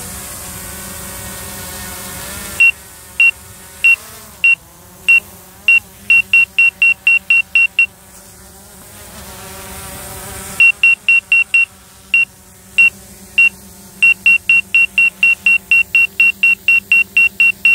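Autel Evo I drone app's obstacle-proximity warning: short high beeps that come faster as the drone closes on parked cars and trees, break off for about two and a half seconds midway, then return at about four a second. They signal an obstacle only a few metres away. A steady hum and hiss runs underneath.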